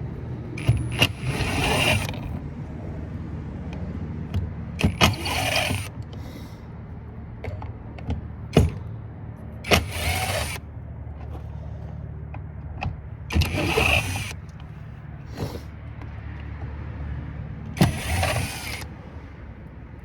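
Power drill/driver with an adjustable clutch backing screws out of the board's hardware in five short bursts of about a second each, with sharp clicks between them as parts are handled. A steady low hum runs underneath.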